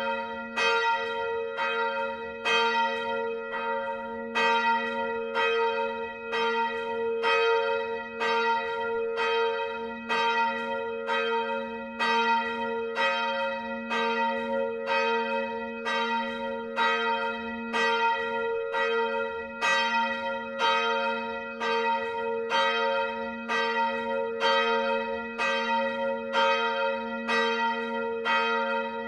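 A single swinging bronze church bell, cast by Petit & Fritsen in 1948 and hung on a straight yoke, rung in full swing. Its clapper strikes evenly, a little faster than once a second, each stroke ringing on into the next over the bell's continuous hum.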